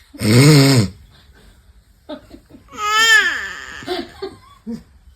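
A short, loud, low-pitched rasping vocal sound just after the start, then a baby boy's high-pitched crying cries from about two seconds in, rising and falling in pitch.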